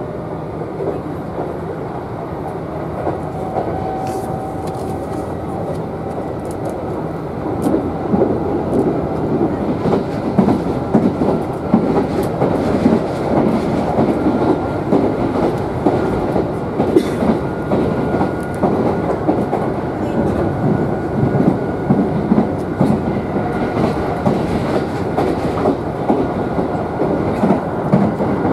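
Running noise inside a moving electric train: a steady rumble with wheels clattering over the rail joints and a faint steady whine. It gets louder about a quarter of the way in.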